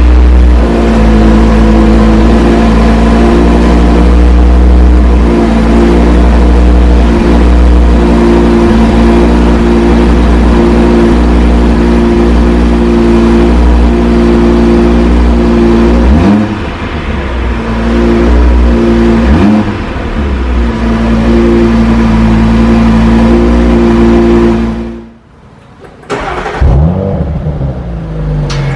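Audi RS performance car engine revved and held at high revs with a steady exhaust note for about sixteen seconds, dropping and picking up again twice, then held again until it cuts off suddenly; one short rev follows near the end.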